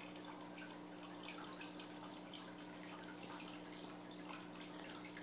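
Aquarium water circulation: water trickling and dripping in many small irregular ticks over a steady low pump hum.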